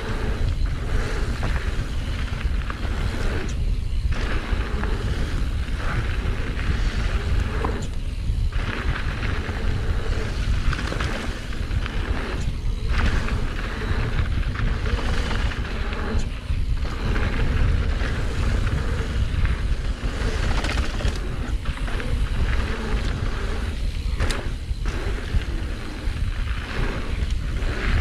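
Mountain bike riding down a rough enduro trail, heard from a GoPro on the rider: heavy wind rumble on the microphone over the rattle of tyres and bike on uneven ground, with a few sharper knocks.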